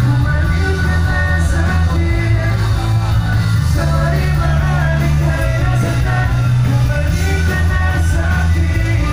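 A rock band playing live through a concert sound system. A male singer sings over electric guitar, bass notes that change every second or so, and drums, all heard from within the crowd.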